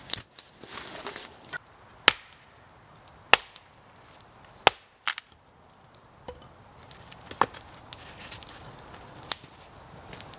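An axe splitting firewood on a chopping block: about seven sharp chopping strikes at irregular gaps of one to two seconds.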